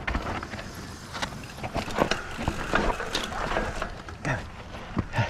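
Mountain bike rolling down a rocky dirt trail: tyres grinding over rock and sand, with the frame and chain rattling and irregular knocks as it hits the bumps, the loudest about two seconds in and just before the end.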